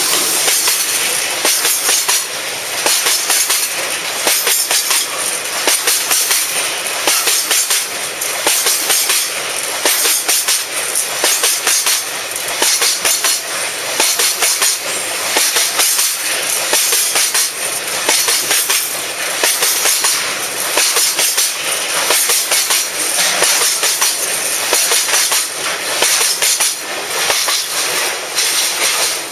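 Freight train of oil tank wagons rolling past close by, its wheels clattering over the rail joints in repeated clusters of clacks over a steady running noise.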